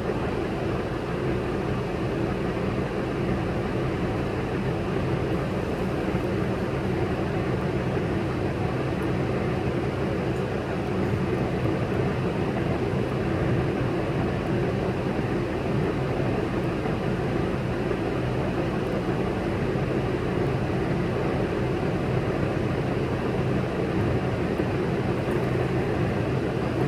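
Semi-truck diesel engine idling, a steady low drone that holds even throughout, heard from inside a truck cab.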